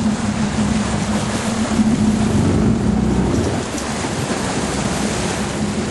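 Sportfishing boat's engine running with a steady hum, over the wash of water along the hull and wind on the microphone.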